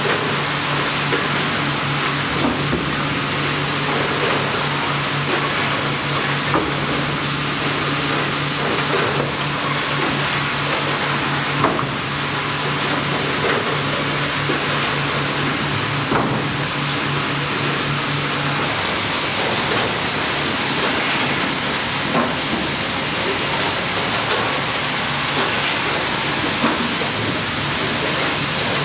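Sawmill machinery of a horizontal band resaw line running: a steady wash of noise from the conveyors and chain transfers, with a low hum that drops away about two-thirds of the way in and occasional short knocks.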